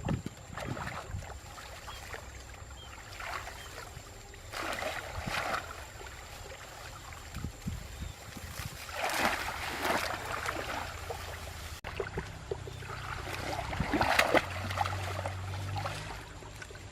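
Water splashing in several separate bursts, as with something moving through shallow water.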